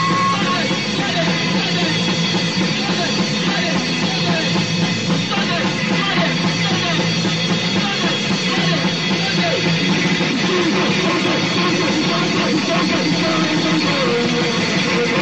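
Loud, dense crust-punk band recording from a cassette compilation: distorted guitars, bass and drums playing without a break.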